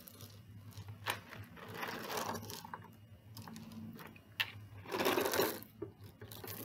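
Homemade sensory bottle of water, cooking oil and loose fill being tipped end to end: liquid sloshing and the fill sliding and rattling inside the plastic, in two slow swells with a few sharp clicks from the bottle.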